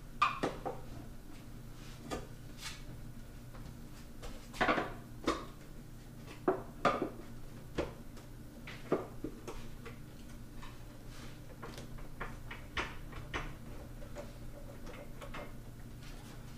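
Irregular metallic clicks and clinks of hand tools and screws as the screws holding the lower cowl of an outboard motor are worked loose, over a faint steady low hum.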